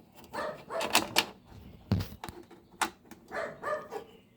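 Sharp clicks and light clatter of metal garage door opener hardware being handled and fitted, with a few separate knocks, the loudest about two seconds in.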